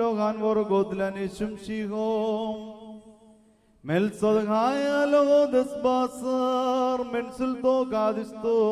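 A bishop chanting the Gospel reading in the Syriac Orthodox liturgy: a single male voice in long, held recitative notes. One phrase fades out about three seconds in, and a new phrase starts with a rising glide about a second later.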